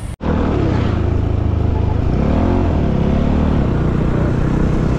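Motorcycle engine running steadily while riding along a road, heard from the bike itself, its pitch rising and falling slightly about halfway through. The sound cuts in after a very short gap just after the start.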